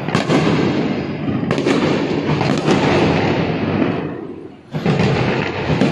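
Fireworks going off all around: a dense, continuous din of bangs and crackling as aerial shells burst overhead. A few sharp cracks stand out in the first half, and there is a brief lull about four and a half seconds in before it picks up again.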